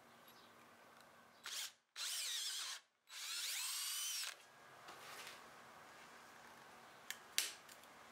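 Cordless drill boring a plug cutter into a walnut scrap: a short burst, then two runs of about a second each, the motor whine rising as it spins up. Near the end, two sharp clicks as a screwdriver pries the cut plug loose.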